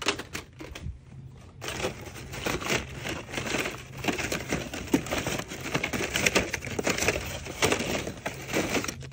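Plastic blister-packed markers crinkling and clattering as a hand rummages through a cardboard display bin. A few sharp clicks come just after the start, then dense, irregular crackling from about a second and a half in until just before the end.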